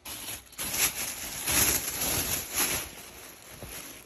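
Plastic shopping bag rustling and crinkling as a hand rummages in it, in irregular bursts that are loudest in the middle and fade towards the end.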